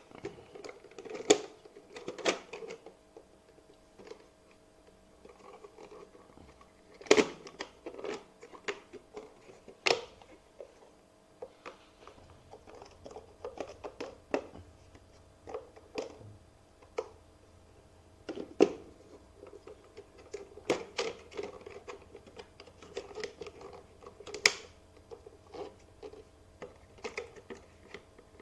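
Hard plastic housing of an OOKAS ceiling exhaust fan being lifted, turned and handled: irregular clicks, taps and rubbing of plastic, with a handful of sharper knocks.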